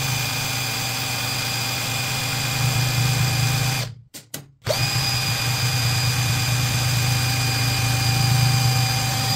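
Cordless drill running at a steady speed, spinning a large electric motor as a generator that is loaded with a resistance-wire coil: a steady whine over a low hum. It stops for about half a second around four seconds in, then starts again.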